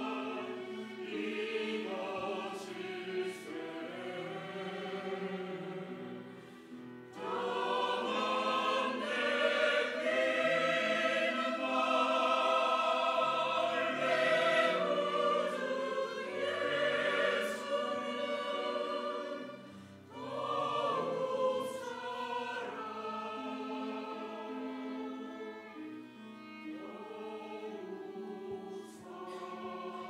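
Mixed church choir singing an anthem in sustained chords. It swells louder about seven seconds in, eases off, dips briefly near the twenty-second mark and comes back softer.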